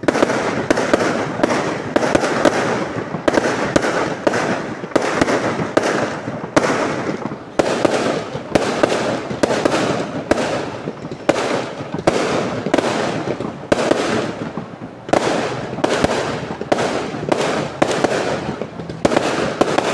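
Fireworks going off in a dense barrage of sharp bangs, about two or three a second, with crackling between them. The barrage starts suddenly.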